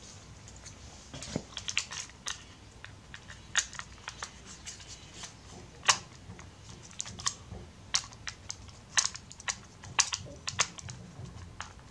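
Plastic casing parts of a Panasonic HC-V160 camcorder being handled and pressed into place: irregular sharp clicks and taps.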